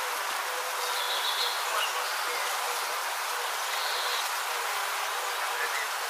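Bees buzzing as a faint wavering hum over a steady outdoor hiss, with two brief high notes about a second and four seconds in.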